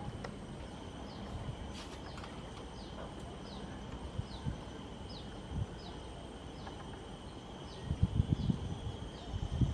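Outdoor wetland ambience: a bird repeats a short, high, falling note every half second or so over a steady high-pitched insect hum. Louder low rumbles come in near the end.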